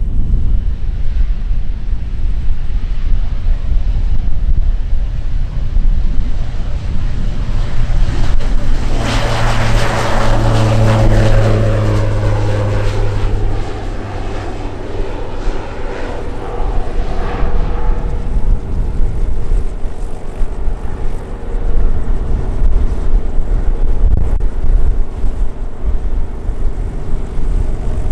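Cessna 208B Grand Caravan's PT6A turboprop engine and propeller at takeoff power, accelerating down the runway and lifting off. It passes close by about nine to thirteen seconds in with a falling pitch, then fades as it climbs away.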